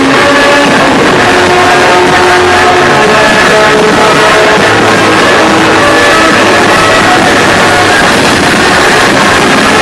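Loud rock-style music with guitar, played over a fireworks display's sound system.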